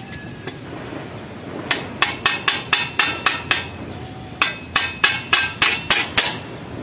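Hammer tapping on metal in two quick runs of about eight ringing strikes, roughly four a second, with a short pause between.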